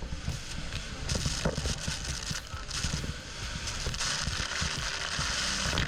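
Rushing water and wind buffeting the microphone aboard a fast tour boat near the waterfalls, a steady hiss over a jittery low rumble.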